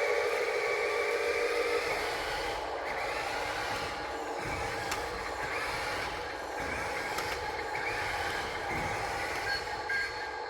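Radio-controlled construction machines working, their electric motors and hydraulic pump giving a steady mechanical whine that wavers in pitch, with a few light clicks.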